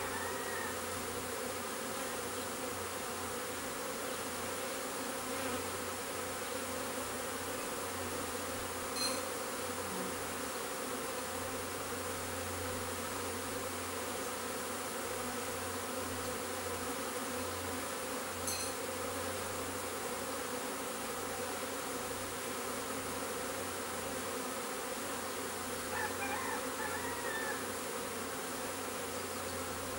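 A honeybee swarm buzzing steadily as it flies around and moves into a swarm trap.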